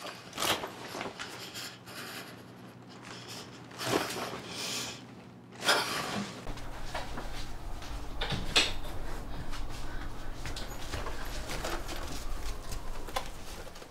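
A woman crying, with sharp gasping breaths and sobs coming in bursts. A low steady hum comes in about halfway through.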